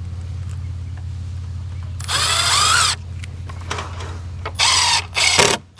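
Power drill running in bursts: one about a second long roughly two seconds in, its whine rising in pitch, then several quick bursts near the end. A steady low hum runs underneath and cuts out near the end.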